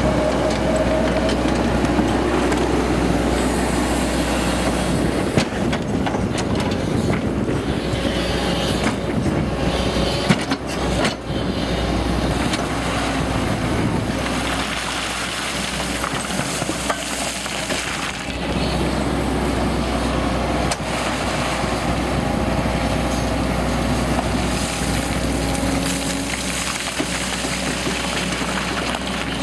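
Caterpillar crawler excavator's diesel engine running steadily under working load, with the bucket scraping and clattering through broken rock and dirt, and a few sharp knocks of steel on rock about a third of the way in.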